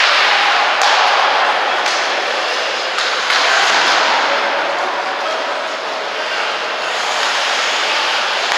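Ice hockey play on the rink: a steady hiss of skate blades scraping the ice, broken by a few sharp cracks of sticks striking the puck about one, two and three seconds in.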